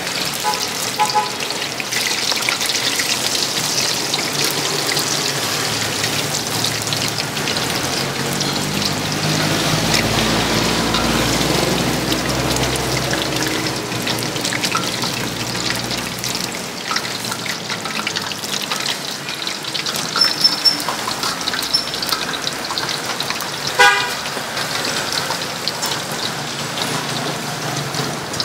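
Battered food deep-frying in a large pot of hot oil, hissing and crackling steadily. A vehicle engine passes in the middle, and a short horn toot sounds near the end.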